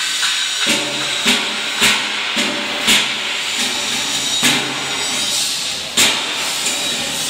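Steady hissing noise of a welding workshop, broken by about five sharp knocks spaced roughly a second apart.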